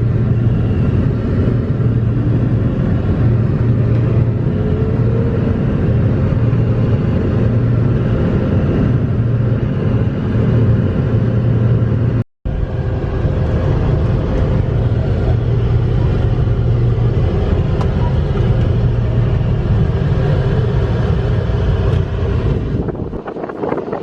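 Engine of a large farm machine running steadily, a loud low drone. The sound cuts out for an instant about halfway through.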